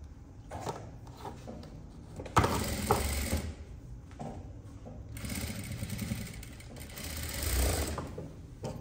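Bruce industrial sewing machine stitching in two runs: a short burst of about a second, starting about two and a half seconds in, and a longer run of about three seconds, starting around five seconds in.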